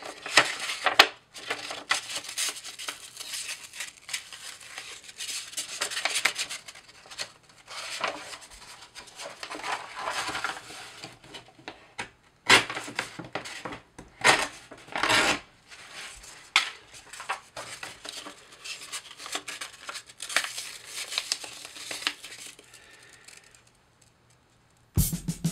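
500-grit sandpaper rubbed by hand over a metal bell housing: irregular rasping strokes with occasional sharp crackles of the paper. The strokes stop about a second and a half before the end, and music with drums starts right at the end.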